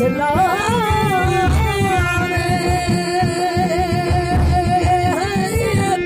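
A man singing a folk devotional bhajan, with a bending opening phrase and then one long held note, over a harmonium's sustained tones and a steady hand-drum beat.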